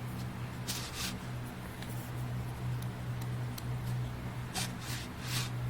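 Pages of a large box-set book being turned by hand: a few short papery swishes, about a second in and twice near the end, over a steady low hum.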